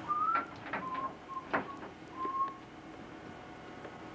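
Clicks and knocks of studio gear and cables being handled at a mixing console, with four short, thin, high tones in the first two and a half seconds, the first rising slightly.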